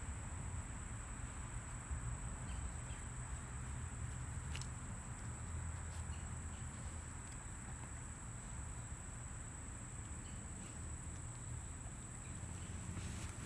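Steady, high-pitched insect song from the surrounding grass, one unbroken tone, over a low rumble, with a faint click about four and a half seconds in.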